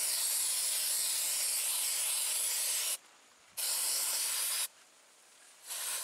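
Aerosol can of blue wound spray hissing in bursts: one long spray of about three seconds, a second of about a second, and a third starting near the end. The spray is being applied directly into a maggot-infested abscess wound.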